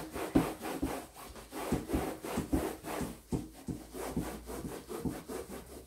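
A damp cloth in a gloved hand rubbed briskly back and forth over a vinyl-covered sewing machine case, giving a steady scrubbing rhythm of about two strokes a second.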